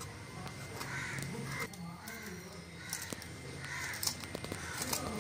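Knife slicing a piece of fresh ginger held in the hand, with faint short clicks of the blade. A bird caws a few times in the background.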